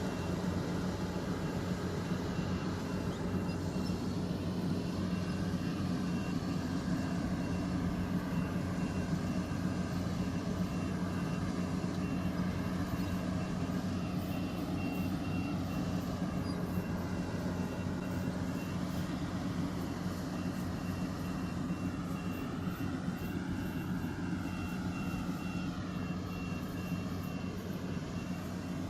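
Rice combine harvester's engine running steadily under load, with a high repeating beep sounding over it, strongest in the second half.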